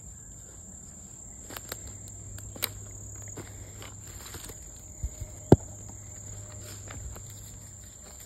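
Footsteps through grass and leaf litter and dry sticks knocking and cracking as a stick is picked out of a pile of dead branches, with a sharp crack about five and a half seconds in. A steady high drone of crickets runs behind.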